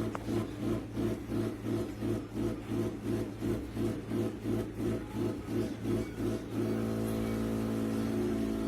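Espresso machine pump humming in quick pulses, about two or three a second, then running steadily from about two-thirds of the way in.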